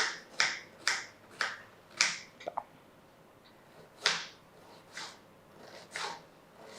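Kitchen knife chopping an onion into small pieces on a cutting board. The sharp knocks come about two a second, pause for over a second about halfway, then resume fainter and more spaced out.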